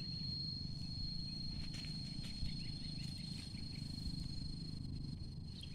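An insect's steady, high-pitched drone, one unbroken tone, over a low steady rumble, with a few faint chirps about two to three seconds in.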